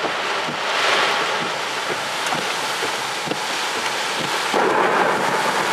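Heavy wind-driven rain lashing a car during a rain-wrapped tornado, heard from inside the vehicle, with scattered taps of rain and debris striking it. The wind surges louder about four and a half seconds in.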